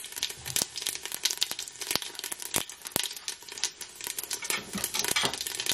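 Whole spices and fennel seeds frying in hot oil in a stainless-steel pot: a steady crackling sizzle with dense small pops and a few louder sharp ones.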